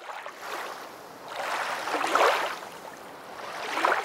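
Rushing water, like waves washing in, swelling and fading in surges, loudest about two seconds in and again near the end.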